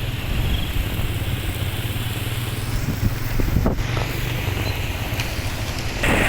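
Strong storm wind blowing, with a steady low rumble of gusts buffeting the microphone; a louder rushing hiss sets in near the end.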